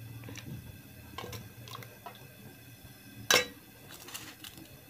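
Metal ladle clinking and scraping against an aluminium cooking pot and bowl as potato curry is dished out: a few light clinks, with one sharper clink a little past three seconds in.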